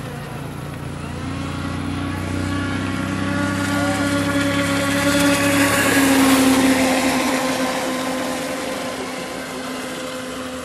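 Thunder Tiger Desperado electric RC catamaran speedboat running past: its motor and the rush of its hulls on the water swell to a peak about six seconds in, then fade.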